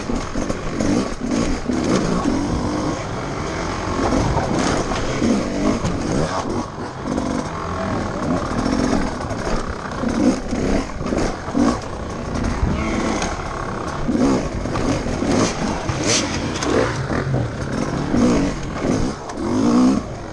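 GasGas enduro motorcycle engine revving up and down repeatedly, heard close up from the bike itself, as the rider works through an obstacle section.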